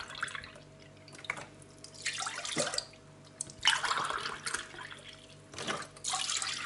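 Milk being poured from a carton into a glass, and from the glass into a stainless steel pot, in three short pours.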